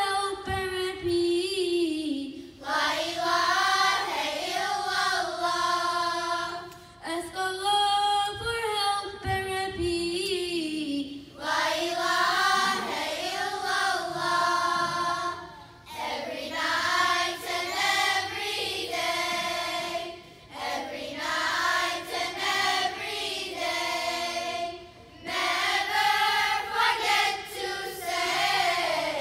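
Girls' children's choir singing together in phrases of a few seconds, with short breaks between them.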